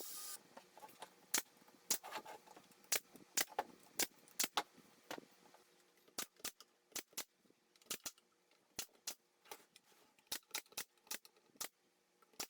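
A run of sharp, irregular clicks and taps, roughly two a second, with a brief hiss at the very start.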